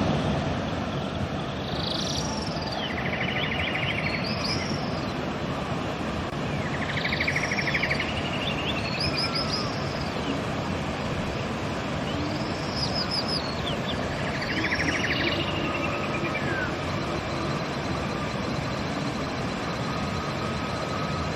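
River water rushing steadily, with songbirds singing over it: repeated phrases of quick trills and short downward-sweeping notes, coming every two or three seconds.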